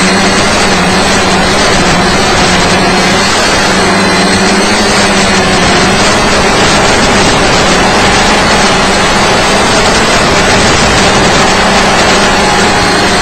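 Steady buzz of a SimpleCopter tricopter's electric motors and propellers, wavering slightly in pitch with the throttle, under heavy hiss from the analog FPV video link.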